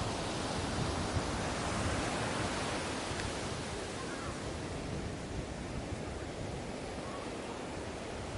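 Ocean waves washing on a beach: a steady rushing surf that is a little fuller in the first few seconds and eases slightly toward the end.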